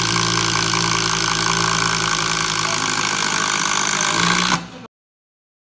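DeWalt 12V cordless driver running steadily under load, driving screws into stacked wooden boards. The sound stops suddenly near the end.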